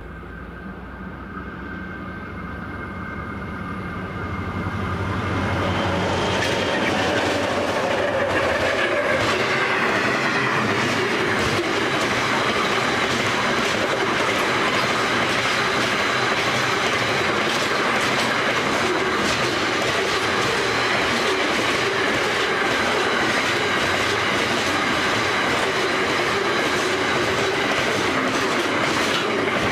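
A diesel-hauled container freight train, led by three locomotives of the 81, X and G classes, approaches with its engines growing steadily louder. The locomotives pass about six to nine seconds in, their pitch dropping as they go by. The long line of container wagons then rolls past with a steady rumble and a rapid clickety-clack of wheels over the rail joints.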